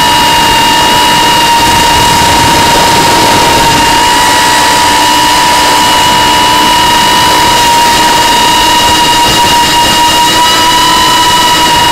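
Eachine X220 quadcopter's brushless motors and propellers in flight, a loud steady high whine over rushing air noise, picked up by a camera on board the craft.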